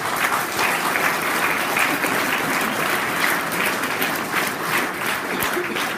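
Audience applause: many people clapping together at a steady level.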